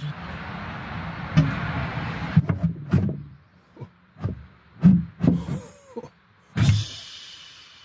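Dubbed-in mechanical sound effects for the bed's folding mechanism. An electric-motor-like whir runs for about two seconds, then comes a string of clicks and clunks with a short squeak, and a burst of hiss near the end that fades away.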